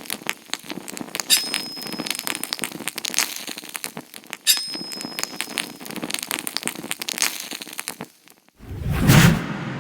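Edited outro soundtrack: a dense crackling, clicking sound-effect track with a short thin high tone that comes back about three seconds later. It drops out briefly, then ends in a louder low whoosh about nine seconds in.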